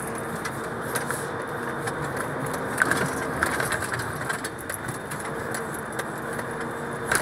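Truck driving on a rough, rutted dirt road, heard inside the cab: a steady engine drone and road noise, with the cab rattling and knocking over the bumps, most around three seconds in.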